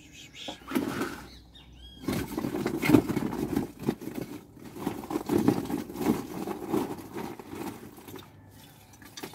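Hands scooping and handling chunky orchid potting medium, a dense rustling crunch with many small clicks. It starts about two seconds in and dies away near the end, after a brief first rustle about a second in.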